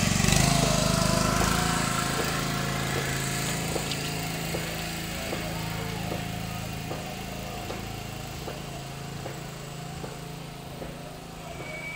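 Small boat's engine running steadily, fading as the boat pulls away, with faint regular knocks a little more than once a second.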